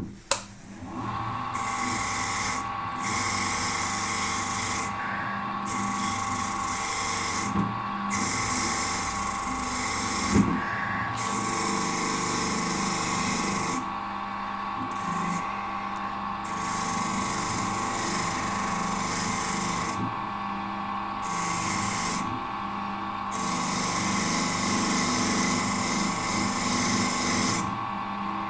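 Small rotary power tool running with a steady high whine while its brush or sanding attachment hisses against a folding knife's liner, taking off oxidation. The hiss drops out briefly several times while the motor whine carries on.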